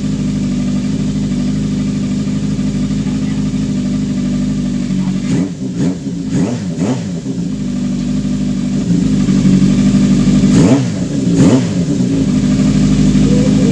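Freshly overhauled Yamaha FZ750 inline-four engine idling steadily, with the throttle blipped several times in quick succession about five seconds in and twice more about ten seconds in.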